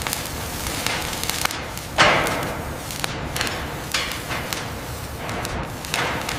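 A few heavy knocks over a steady hiss, the loudest about two seconds in, each trailing off over about a second.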